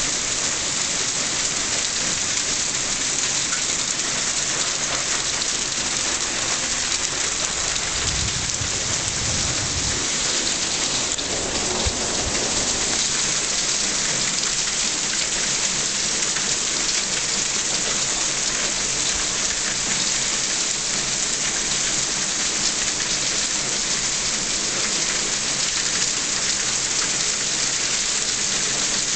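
Hailstorm: hailstones and rain pelting down in a dense, steady downpour, with a brief low rumble about eight seconds in.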